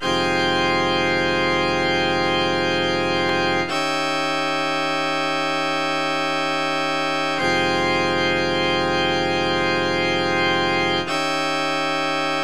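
Sustained electronic keyboard chords played on a Roland Boss DR-5 rhythm and tone module. Two held chords alternate in a slow vamp, each lasting about three and a half seconds, with no drums yet.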